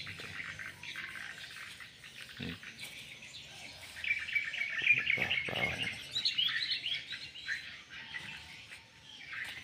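Small birds chirping and twittering in quick runs of high notes, busiest and loudest in the middle, with a few soft low thuds.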